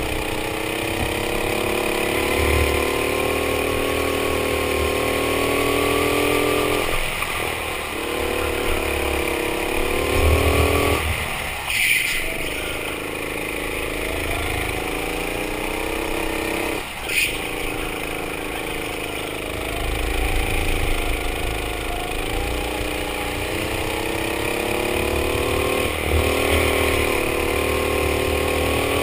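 Go-kart engine running hard under racing load, its pitch rising and falling as the kart accelerates down the straights and lifts off for the corners. The engine note drops away briefly three times, and two sharp knocks come about twelve and seventeen seconds in.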